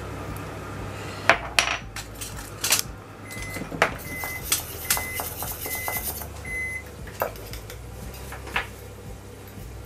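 Metal spoon and wire whisk clinking and scraping against a small stainless steel bowl while grated ginger is stirred into soy sauce. In the middle, a run of short, high electronic beeps about 0.8 seconds apart sounds from a kitchen appliance.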